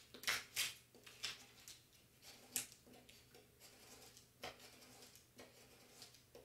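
A hand-held scraper tool rubbing down transfer tape over adhesive vinyl on a chalkboard, burnishing the vinyl so it sticks: a series of short, irregular scratchy strokes.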